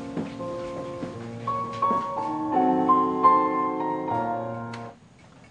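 Background music on piano: sustained notes that build into a fuller chord partway through, then cut off near the end.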